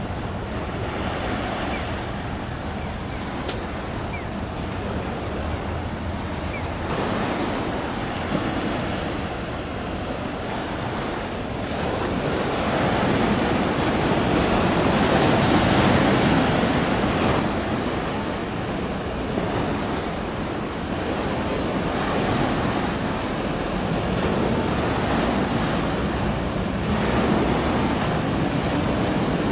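Wind blowing across the microphone over the steady wash of waves. It swells louder about halfway through, then eases.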